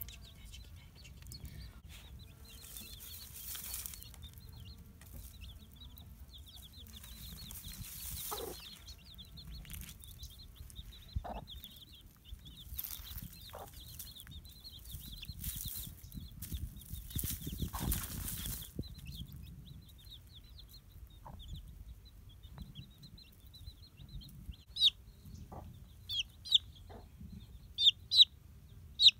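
Chicks peeping in a steady run of soft, high-pitched cheeps, with a hen giving an occasional short cluck and a few bursts of rustling. In the last few seconds a chick close by gives a series of loud, sharp peeps, roughly one a second.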